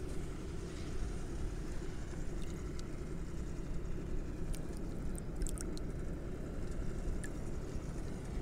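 A hand working in shallow flood water among aquatic weeds, making a few faint splashes and drips over a steady low rumble.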